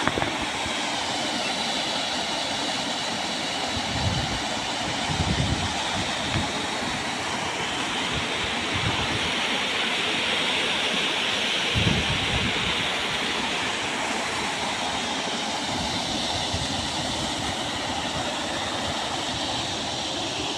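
Canal water pouring out through a gate outlet and churning into the channel below: a steady, even rush of falling water, with a few soft low thumps about four to six seconds in and again about twelve seconds in.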